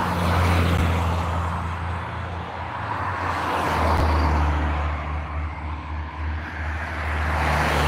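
Road traffic: cars passing close by, their tyre and engine noise swelling and fading about three times, over a steady low hum.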